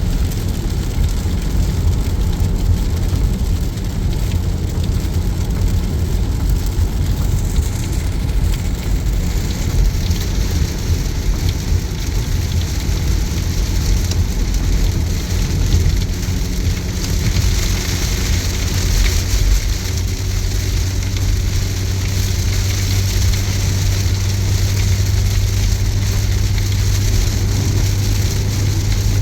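Heavy rain hitting a car driving on a motorway, as a steady hiss over the low drone of engine and tyres. The rain's hiss grows heavier about nine seconds in and again a little past halfway.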